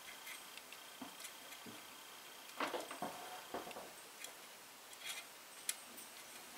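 Faint scattered small clicks and taps from handling a soldering iron and solder wire at a metal handrail stanchion on a plastic locomotive shell, about seven in all.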